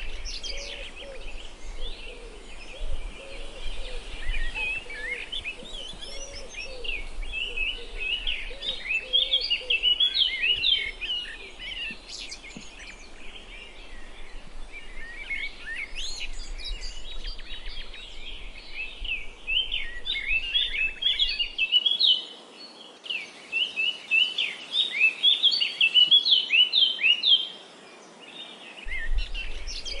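A chorus of many small birds chirping and twittering in dense runs of short, rapid high notes, with some lower calls mixed in during the first third.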